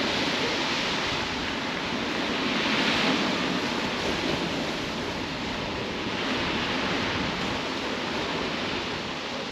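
Surf breaking steadily on a shingle beach, a continuous wash of waves that swells louder about three seconds in.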